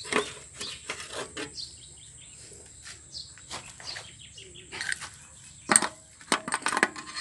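Scattered clicks and metallic clinks of hand work on a small diesel engine, the loudest cluster near the end with a brief ringing. Birds chirp faintly in the background.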